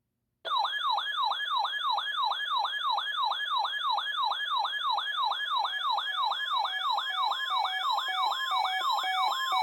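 Electronic siren tone in a fast yelp, its pitch sweeping up and down about three times a second. It starts about half a second in, and near the end short steady beeps come in between the sweeps.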